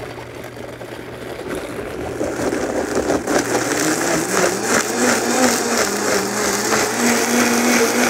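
Countertop blender starting up and running, churning a thick liquid marinade. The motor comes on suddenly, then rises in pitch and grows louder as it gets up to speed.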